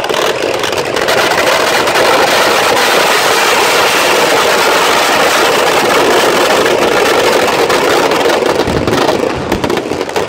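Fireworks packed inside a burning Dussehra effigy of Ravana going off in a dense barrage, the crackles and bangs merging into one continuous loud din. It builds in the first second and eases a little near the end.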